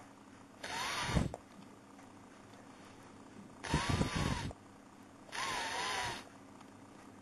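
A man sounding the voiceless 'th' on its own three times: air blown out through the teeth with the tongue between them, a soft hiss each time lasting under a second.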